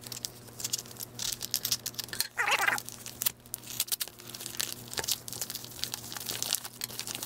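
Plastic packaging and tape being crinkled and torn open by hand, a quick run of irregular crackles and rips, with one longer, louder sound about two and a half seconds in. A faint steady electrical hum runs underneath.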